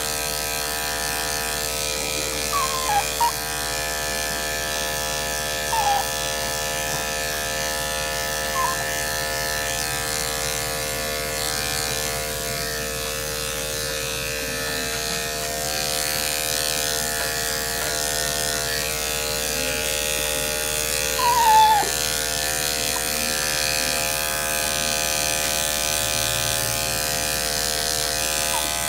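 Electric dog-grooming clippers humming steadily as they cut through the dog's coat. The dog gives a few short, high, falling whines, the loudest about 21 seconds in.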